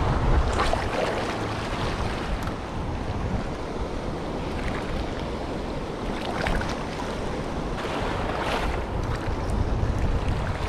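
Surf washing over the reef, with wind buffeting the microphone as a low rumble.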